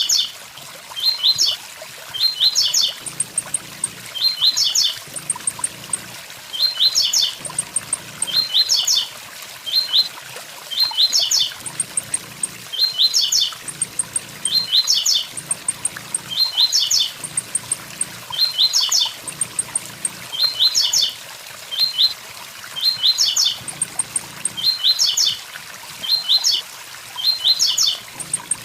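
Blue-black grassquit (tiziu) singing its 'tui tui zel zel' phrase, short clusters of quick high notes repeated about every two seconds, over a steady waterfall rush.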